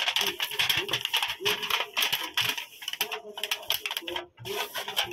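A hand rubbing over the inside of a thin disposable aluminium foil loaf pan to grease it, the foil crinkling and clicking in quick, irregular crackles.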